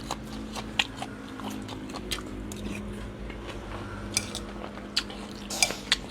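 Eating noodle soup: sharp clinks of utensils against the bowl, about six scattered through, with chewing in between.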